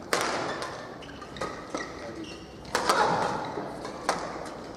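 Sharp knocks and claps echoing in a large sports hall, about six of them, the loudest pair a little before three seconds in, over a murmur of crowd voices.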